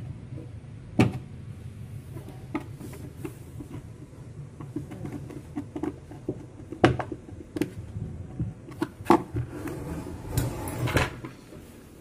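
Screwdriver driving screws into the plastic body panel of a twin-tub washing machine, with scattered clicks, scrapes and plastic knocks as the panel is fastened. The sharpest knocks come about a second in, near seven seconds and about nine seconds in, with a cluster of rattling just before the end.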